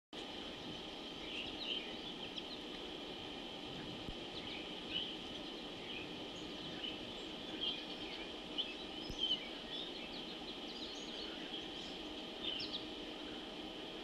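Outdoor ambience of many short bird chirps and calls, scattered irregularly over a steady high-pitched drone.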